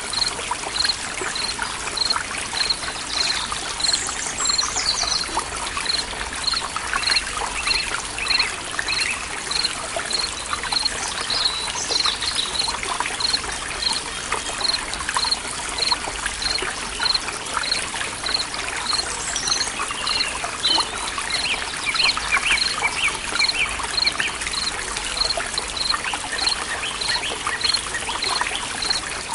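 Forest ambience: water trickling steadily while birds chirp now and then, with a regular series of short high pips, about one and a half a second.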